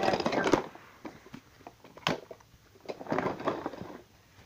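Rustling and handling noise as plush toys are moved and rubbed close to the microphone, in two noisy patches, with a single sharp knock about two seconds in.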